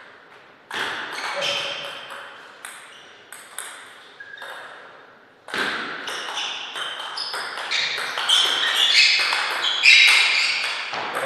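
Table tennis ball being hit back and forth, each stroke off the rubber and each bounce on the table a sharp click with a short ping. The hits are sparse at first, then come thick and fast in a rally over the second half.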